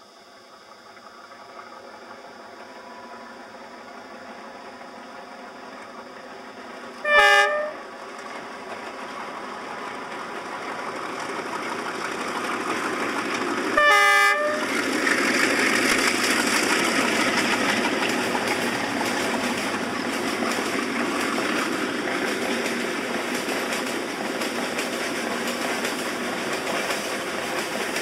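DF4D diesel locomotive approaching with a growing engine drone, and two short horn blasts about seven seconds apart. After the second blast, a long string of loaded coal wagons rolls past with steady wheel rumble and clatter.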